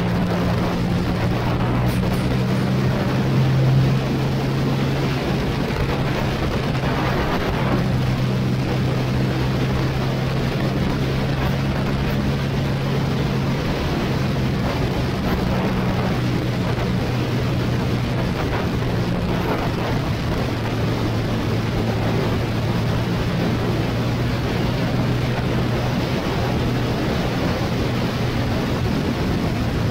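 Motorcycle engine running at a steady road speed, its note shifting a little now and then, under a constant rush of wind and tyre noise.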